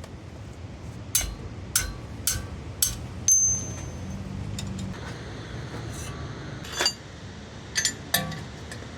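About eight sharp clinks and taps of hard objects, spaced irregularly, over a steady low hum.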